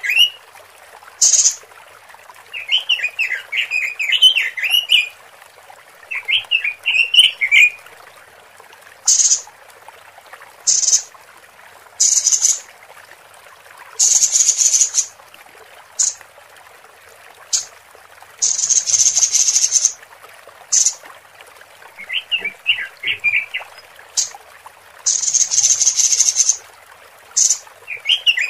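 Female Pekin robin (red-billed leiothrix) lure calls: short, fast warbled chattering phrases alternating with harsh hissing buzzes, some brief and some over a second long. This is the female's voice, played to draw in and excite males.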